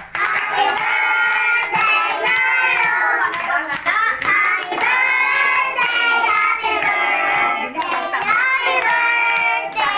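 A group of children singing a birthday song together and clapping along.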